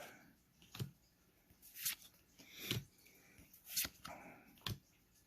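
Pokémon trading cards being flipped one by one through a freshly opened pack, each card sliding off the stack with a faint short swish, about once a second.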